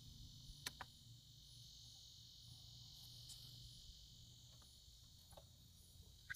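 Near silence: a faint steady chorus of insects chirring, with a couple of faint sharp clicks from handling.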